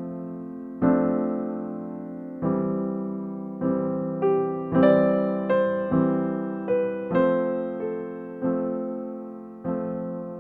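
Background music: a soft keyboard piece with struck chords every second or so, each fading before the next, and a few single melody notes in between.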